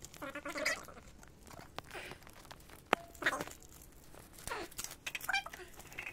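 Metal perfume bottles being taken out of a cardboard box and set down on a tiled floor, with cardboard rustling and a few sharp knocks as the bottles touch down, the loudest about three seconds in.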